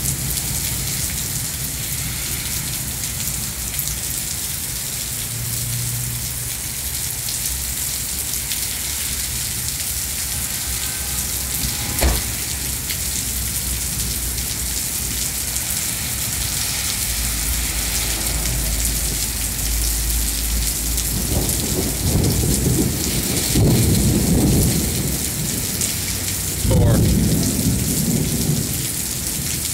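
Heavy rain pouring steadily onto pavement, a constant hiss. A single sharp thunder crack about twelve seconds in, then thunder rumbling and rolling in waves during the last third.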